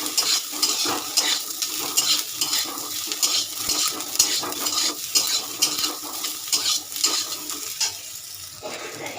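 Soaked soya chunks sizzling as they fry in hot oil, stirred with a spatula that scrapes the pan over and over. The scraping comes two or three times a second.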